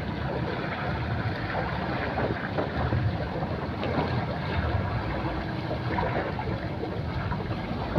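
Steady wind buffeting the microphone over water lapping around a bamboo raft.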